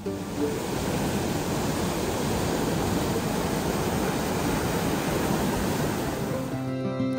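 Steady rush of water pouring over a river weir and through a sluice channel, churning white in the pool below. Music comes in near the end.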